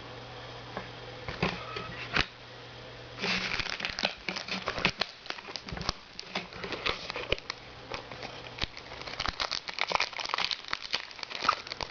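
Crinkling plastic and foil packaging of a trading-card blister pack and its booster packs, handled with a few clicks at first, then a dense run of small crackles and clicks from about three seconds in.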